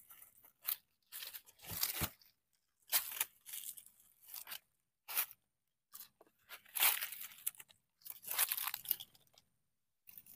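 Dry leaf litter, bark and soil crunching and scraping in short, irregular bursts as the ground is dug and poked through.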